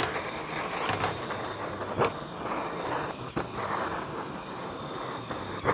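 Handheld gas torch with a bell-shaped metal flame shield burning with a steady hiss as it toasts sliced almonds on a metal sheet pan, with a few sharp clicks.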